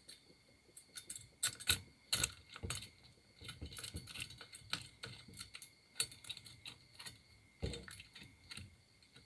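Irregular small metal clicks and taps as a nut is fitted by hand onto the bar-mounting stud of a chainsaw-bar adapter for an angle grinder, with a steel spanner knocking against the bar and housing.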